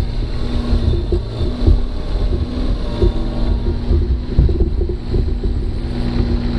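Kubota KX018-4 mini excavator's three-cylinder diesel engine running steadily while the boom lifts and swings a full bucket of dirt.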